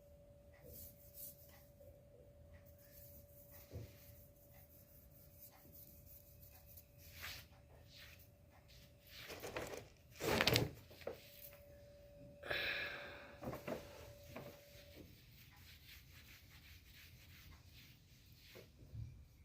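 A paper bag rustling and scraping in short, scattered bursts as a cat plays with it, loudest about ten seconds in, over a faint steady hum that stops near the three-quarter mark.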